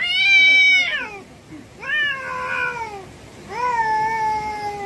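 A cat meowing three times: a loud first call, a shorter second call, and a long drawn-out third call that slowly falls in pitch.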